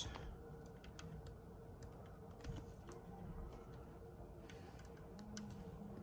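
Quiet room tone: a faint steady hum with scattered light clicks and ticks.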